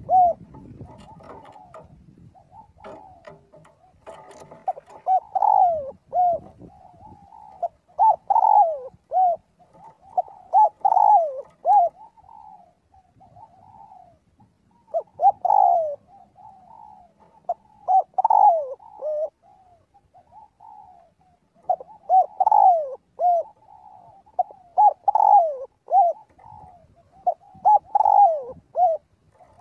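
Spotted dove cooing: short phrases of a few falling coos, repeated every few seconds. This is the dove's calling song.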